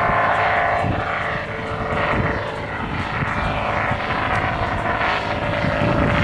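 Propeller engine of a high-wing ultralight aircraft climbing out overhead after takeoff, a steady buzzing drone.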